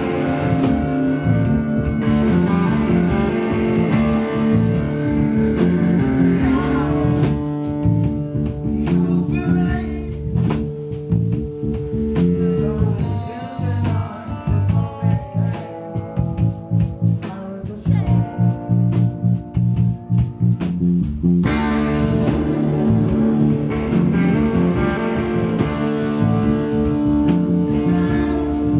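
Live rock band playing: bass guitar, guitar and drums, with a man singing into the microphone. The band drops to a sparser, quieter passage about halfway through, then comes back in full about three-quarters of the way in.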